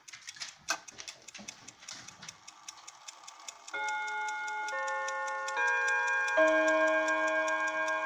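Quick, even ticking from the Schatz mantel clock's platform escapement. About four seconds in, the hammers begin striking the brass chime rods, one note about every second, each note ringing on under the next.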